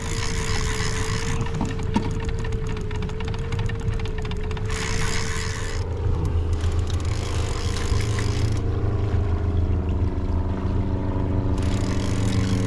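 Boat motor running steadily, with rapid fine clicking over it through most of the stretch; the motor's note changes about halfway in.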